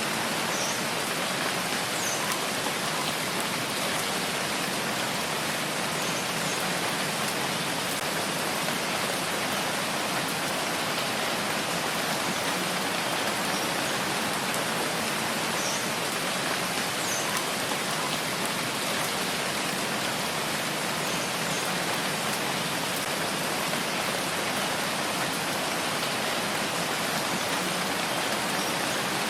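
Steady rainfall: an even hiss of rain with a few faint separate drop ticks scattered through it.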